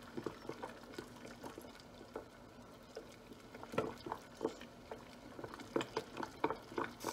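Silicone spatula stirring melted beeswax and oils in a glass measuring jug set in a double boiler, giving soft, irregular taps and clicks against the glass, with the hot water in the pot simmering underneath.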